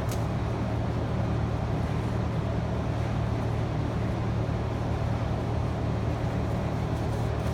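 A steady low mechanical drone, like a motor or engine running, with one sharp click right at the start.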